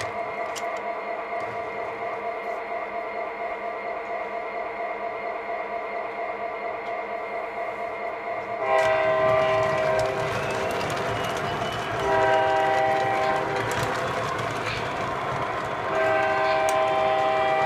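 Sound system of an O scale model diesel locomotive: a steady, slightly pulsing engine drone, then the horn sounds three blasts in the second half, the first one the longest.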